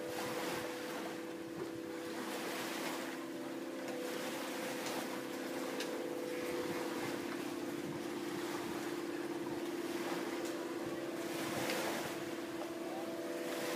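Aeolian wind harp strings sounding in the wind off the water: several steady overlapping drone tones that hold on, over gusts of wind noise that rise and fall every second or two.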